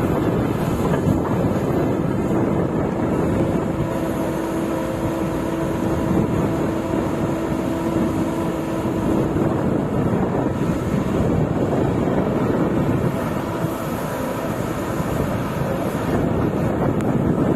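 Hyundai R130 excavator's diesel engine running steadily under working load, with a steady tone that comes in about four seconds in and fades near ten seconds. Wind buffets the microphone.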